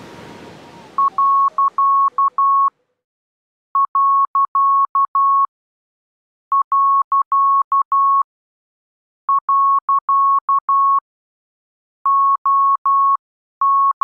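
Morse code practice tone: a single steady-pitched beep keyed on and off into dots and dashes, sent in groups of characters with gaps of about a second between them. Over the first two seconds a hiss with a falling tone fades out beneath it.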